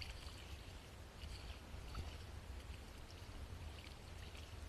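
Water sloshing and trickling around an inflatable kayak, over a steady low rumble.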